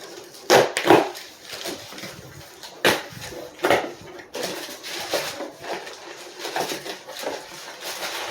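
A cardboard box being opened by hand: tape ripping and packaging rustling, with several sharp rips.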